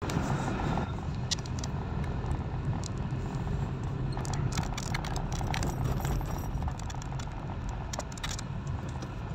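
A car driving, heard from inside the cabin: a steady low rumble of engine and tyres, with scattered light clicks and rattles.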